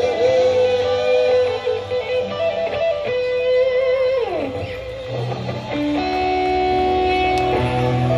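Live band music led by an electric guitar: a long held, wavering lead note that slides down about four seconds in, then steady held chords over bass.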